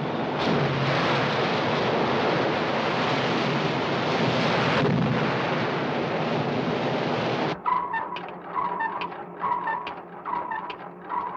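Heavy sea rushing and breaking against a warship's hull as she drives through rough water, a loud steady wash of water and spray. About seven and a half seconds in, it cuts off suddenly to ASDIC sonar pings repeating about twice a second, close-range contact on a submarine.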